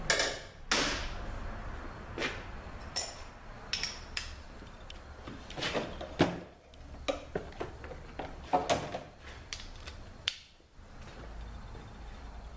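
Metal tools and transmission pump parts being handled and set down on a workbench: a dozen or so irregular sharp clinks and knocks, a few with a short metallic ring.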